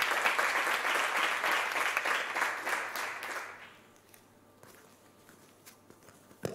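Audience applauding, dying away about three and a half seconds in; after that a quiet hall with a few faint knocks.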